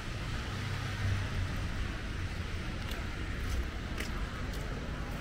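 City street ambience in light rain: a steady low rumble of traffic under an even hiss from the wet street, with a few light ticks between about three and four and a half seconds in.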